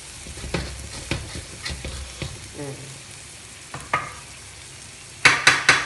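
Metal spatula scraping and stirring in a wok where shiitake mushrooms and garlic are frying with a faint sizzle: scattered scrapes and clicks at first, as stuck residue is scraped off the pan. Near the end, quick loud stirring strokes begin, about four a second.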